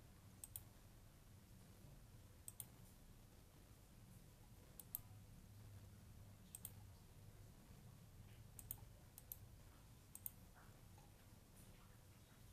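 Sharp button clicks of a computer pointing device, each a quick double tick of press and release, about seven of them at irregular intervals while a file is selected, right-clicked and copied. A faint steady low hum sits underneath.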